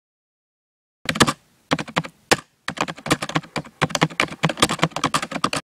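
Typing keystrokes in quick irregular runs of sharp clicks, starting about a second in, pausing briefly twice, and stopping just before the end. A typing sound effect that goes with the typewriter-style text.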